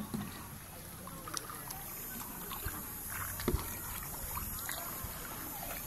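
Kayak paddles dipping and splashing as a plastic sit-on-top kayak is paddled across calm water, with a few light knocks, the loudest about three and a half seconds in.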